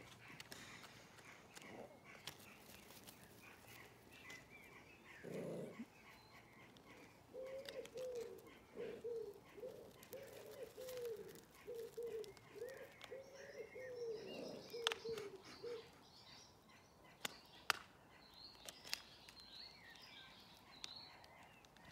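Faint birdsong and chirping, with a pigeon cooing a run of repeated soft coos from about seven to sixteen seconds in. A few sharp knocks come near the end.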